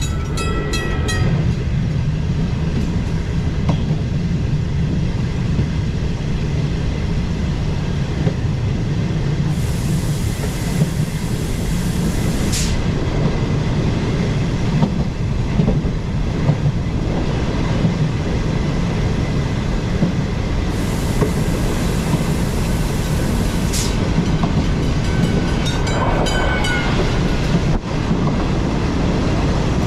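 ÖBB Railjet passenger train running on the rails as it picks up speed, a steady low rumble of wheels and running gear. Short runs of clicking with a faint high squeal come right at the start and again near the end.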